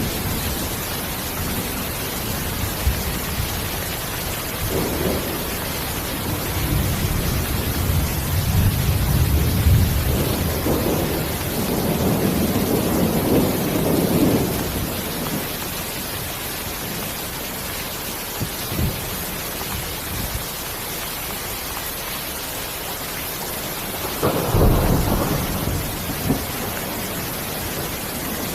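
Steady rain with rolling thunder: a long rumble swells from about five seconds in to about fifteen, and a second, sharper rumble breaks out about twenty-four seconds in.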